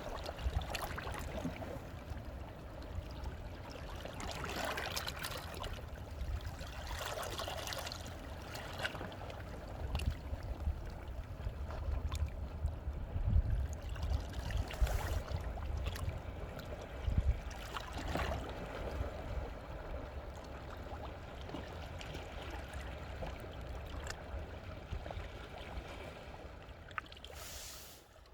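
Sea waves washing in among shore rocks and trickling back off them, a steady wash with a surge every few seconds, fading out near the end.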